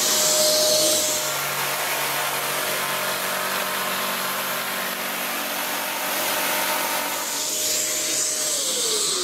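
A power saw cuts wood while a Kärcher multi-purpose vacuum, switched on automatically from its power-tool socket, draws off the dust. The saw's motor hums steadily through the cut and winds down near the end, while the vacuum's hiss keeps on.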